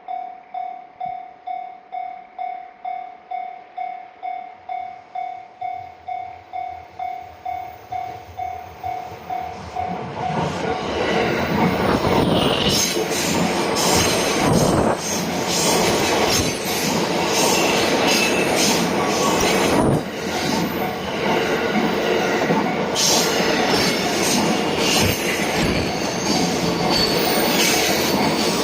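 Japanese level-crossing warning bell ringing its even 'kan-kan' about twice a second. About ten seconds in, a train arrives and passes through the crossing, its wheels clattering over the rails and drowning out the bell.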